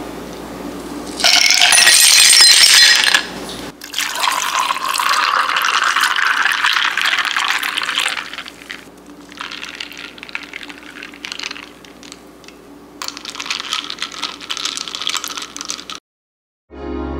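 Kitchen tap running in spells, water splashing and filling, with light clinks of dishes in between.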